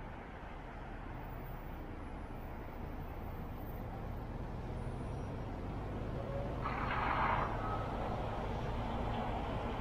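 Road and engine noise of a car driving on a city street: a steady low rumble that grows gradually louder, with a short hiss about seven seconds in.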